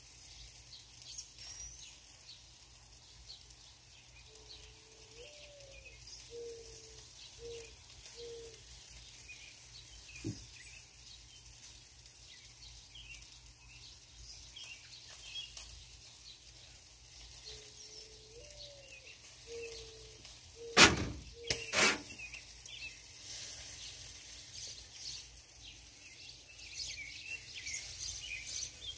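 Birds chirping and twittering outdoors, with a low, mellow cooing phrase twice: one rising note followed by several short notes. Two sharp knocks come close together about three-quarters of the way through and are the loudest sounds.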